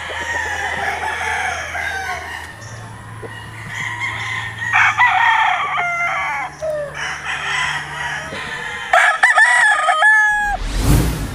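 Gamefowl roosters crowing: long drawn-out crows, several overlapping, in three spells. A brief loud rush of noise comes near the end.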